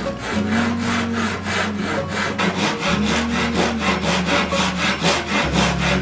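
Japanese-style hand saw cutting through a wooden tabletop, rasping back and forth in quick, even strokes, about three a second.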